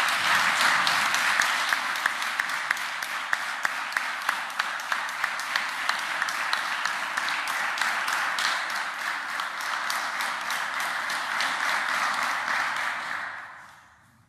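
Applause from a small group of people clapping, with individual claps standing out, dying away near the end.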